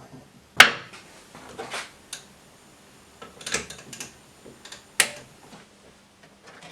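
Hard parts being handled: a few sharp knocks and clatters, two louder ones about half a second in and near the end.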